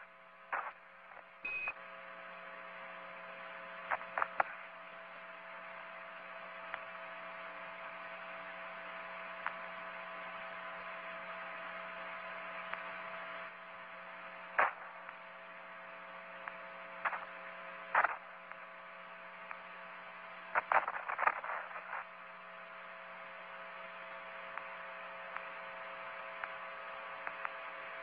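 Steady hum and hiss of a radio communications channel, broken by scattered clicks and crackles, with a short beep about a second and a half in.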